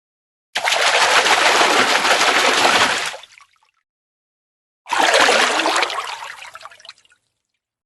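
Fish splashing and thrashing at the water surface in two bursts: a sudden splashy spell of about two and a half seconds, a silence, then a second one that starts sharply and fades out over about two seconds.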